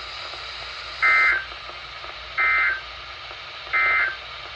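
Emergency Alert System end-of-message code: three short, identical bursts of screeching digital SAME data tones about a second apart over a steady hiss. They mark the end of the warning broadcast.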